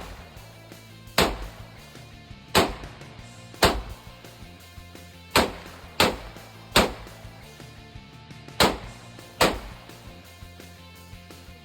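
Canik TP9 Elite 9mm pistol fired eight single shots at an uneven pace, with gaps from under a second to nearly two seconds. Background music plays underneath.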